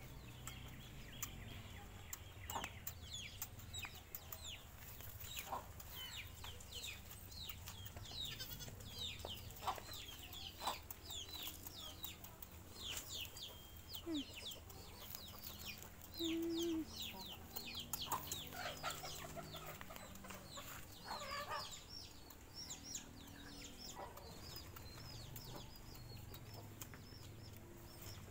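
Birds chirping around a farmyard: many short, quick, falling chirps that keep coming, with a brief low call about sixteen seconds in.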